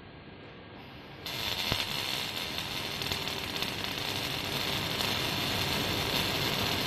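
Robotic arc welder striking its arc about a second in, then a steady crackling hiss of the welding arc as the robot lays a weld.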